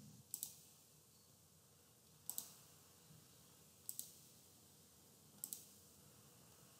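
Computer mouse button clicked four times, about one and a half to two seconds apart, each click a quick double snap of press and release.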